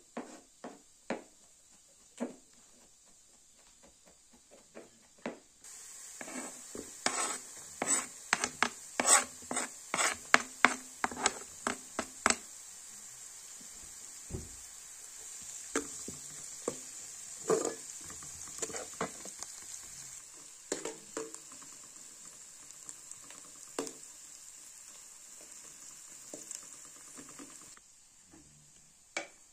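Food sizzling in a pan while a utensil stirs it, knocking and clinking against the pan. The sizzle starts suddenly several seconds in and cuts off near the end, with a quick run of knocks in the first half.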